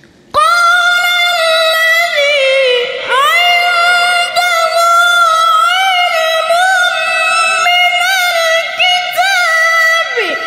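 A Quran reciter's voice in the very high register, holding one long, loud note with small melodic turns, dipping in pitch about three seconds in and briefly falling away near the end before rising again.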